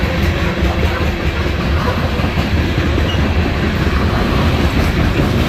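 CSX coal gondolas passing close by: steel wheels running on the rails make a loud, steady noise, heaviest in the low end, with no locomotive heard.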